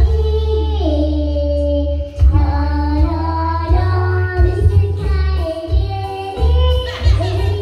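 A young girl singing into a handheld microphone, holding long notes that slide in pitch between them.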